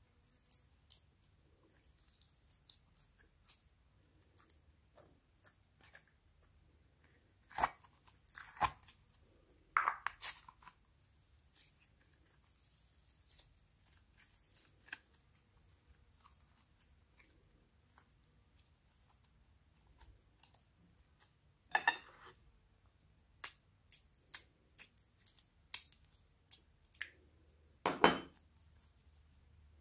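Glossy slime being squeezed, stretched and folded by hand, making sticky wet clicks and pops at irregular intervals, with a few louder spells of crackling about eight, ten, twenty-two and twenty-eight seconds in.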